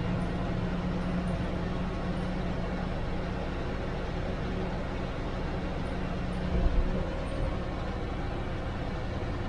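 Cabin noise of a TNSTC bus driving at speed: a steady engine hum under road and wind noise. The hum drops away about seven seconds in, just after a brief low thump.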